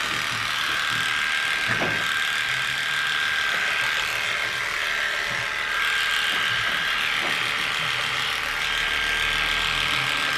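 Cordless electric pet clippers running with a steady buzz, shaving through a puppy's matted, tangled coat.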